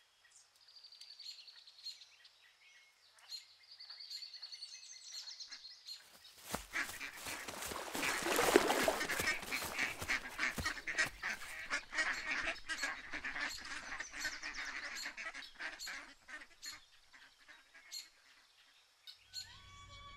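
A flock of waterfowl calling, many overlapping honks and quacks. The calls are faint at first, swell loud about six seconds in, peak around eight seconds, and die away a few seconds before the end.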